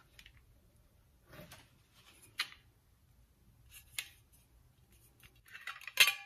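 Stainless steel plates being lifted from a cardboard box and handled: soft rustles and a few light taps, then near the end a sharp clink as the two plates knock together, ringing briefly.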